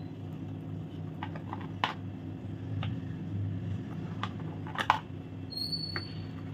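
Scattered light clicks and taps as set chocolate pieces are worked out of a flexible silicone mold and set down on a tray, over a low steady hum.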